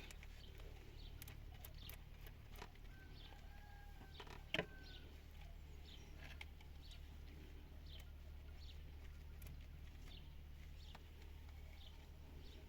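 Faint background: a low steady hum with scattered distant bird chirps, and one sharp click about four and a half seconds in.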